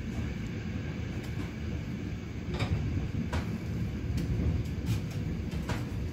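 Interior running noise of an ÖBB class 4020 electric multiple unit: a steady low rumble from the running gear, with sharp wheel clicks over the track about every second from about halfway through.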